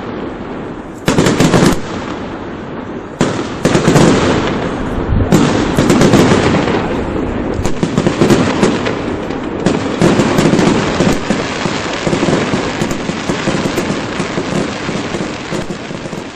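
Fireworks bursting: several sharp bangs over dense, continuous crackling from crackle-star shells, tapering off near the end.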